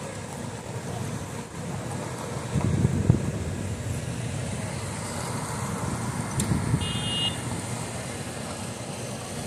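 Road traffic: vehicles driving by with a low engine and tyre rumble that swells about three seconds in and again around six seconds, and a short high horn toot about seven seconds in.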